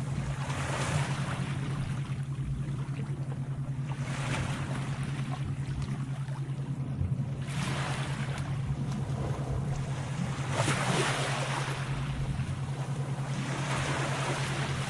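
Sea waves washing in, a fresh surge about every three to four seconds, over a steady low hum.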